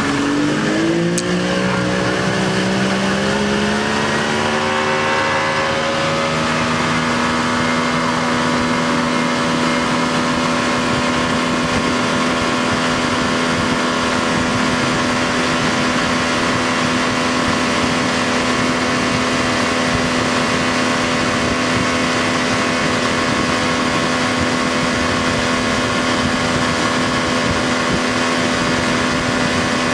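A boat's engine picking up revs over the first few seconds, then running steadily at speed, over a steady rushing noise.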